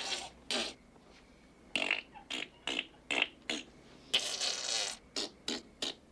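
A boy's imitation fart noises: a string of short, separate blasts with one longer one a little after four seconds in.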